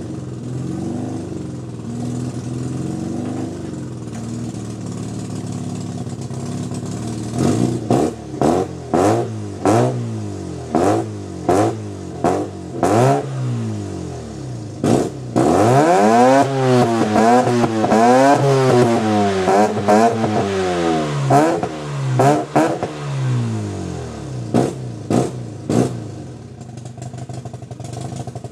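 1989 Mazda RX-7's 13B twin-rotor Wankel engine through a freshly fitted A'PEXi N1 dual exhaust and test pipe. It idles steadily, then takes a string of quick throttle blips, then revs up and down rapidly for several seconds, gives a few more blips and settles back to idle.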